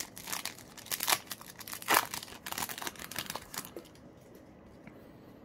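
Foil wrapper of a trading-card booster pack crinkling in the hands as it is opened and the cards are pulled out. It comes in irregular crackles, loudest about halfway, and stops about four seconds in.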